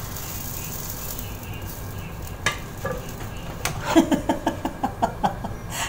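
Crepe batter sizzling in a hot nonstick frying pan, a steady hiss. About two and a half seconds in comes a single click, then a quick run of short clattering taps, like a ladle and utensils knocking on the pan and counter.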